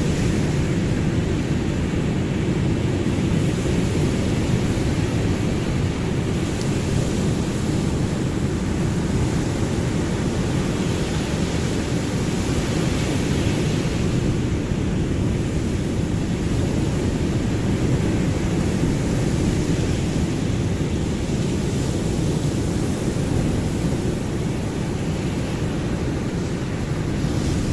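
Ocean surf: a steady, deep rush of waves with little rise and fall.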